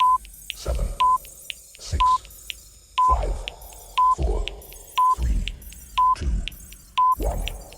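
Countdown timer effect: a short electronic beep once a second, about eight times, each followed by a deep, effected voice calling out the next number of the count.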